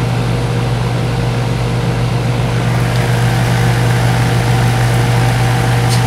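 Heat pump outdoor unit running in cooling: a steady compressor hum with condenser fan noise. The system is low on refrigerant, which its high superheat shows and which it is about to be charged for.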